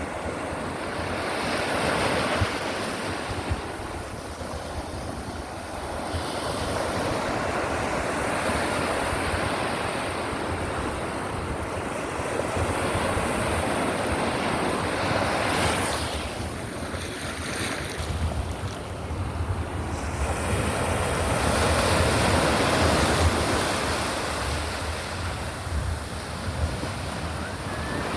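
Ocean surf: waves breaking and washing up the shore, swelling and ebbing every six or seven seconds, with wind buffeting the microphone.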